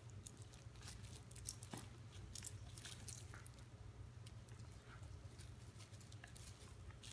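Faint scattered clicks and light rustling as a wire fox terrier mouths and tugs a plush toy, with the metal tag on its collar jingling now and then, mostly in the first few seconds. A steady low hum sits underneath.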